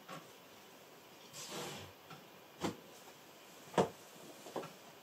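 Three short, sharp clicks about a second apart over a quiet background hiss, with a softer brushing sound just before them.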